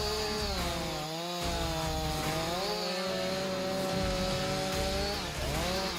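Gas chainsaw engine running at high revs. Its pitch dips briefly about a second in, again near three seconds and again near the end, each time climbing back.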